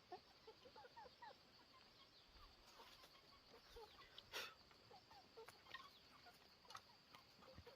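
Chickens clucking faintly, many short calls scattered throughout, with a few light clicks or knocks.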